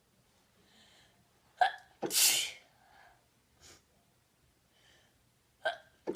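A woman's induced sneeze: a soft in-breath, a sharp catch of breath about one and a half seconds in, then one loud sneeze. Another catch and the start of a second sneeze come right at the end.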